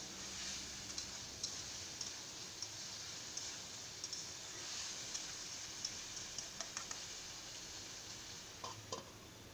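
Light scattered clicks and scrapes of a metal spatula against a metal kadai while vegetables are stirred, over a faint steady hiss from the pan.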